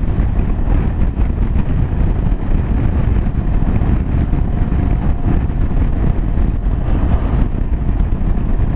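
KTM 790 Adventure's 799 cc LC8c parallel-twin engine pulling steadily at motorway speed, under a constant rush of wind and road noise on the microphone.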